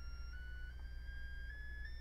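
Electronic test tone from an op-amp mixer, played through a small LM386-type amplifier and speaker, climbing in pitch in small steps, with fainter higher tones alongside. Under it runs a steady low hum, the amplifier's noise.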